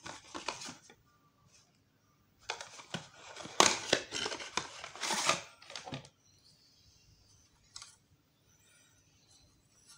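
Cardboard box of an LED downlight being handled and opened by hand: papery rustling and scraping of the box flaps and card insert in irregular bursts, loudest in the middle, then near quiet with one light click.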